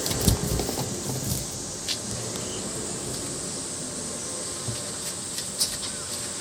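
Thunder rumbling low in the first second or so, over a steady high buzz of insects. A few sharp clicks come at about two seconds and near the end.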